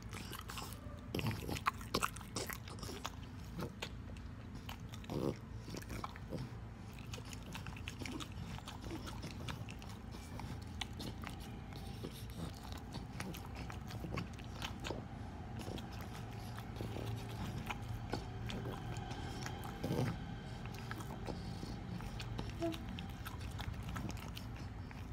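French bulldog chewing banana from a hand, close up: an irregular run of soft mouth clicks and lip smacks, with a few louder smacks.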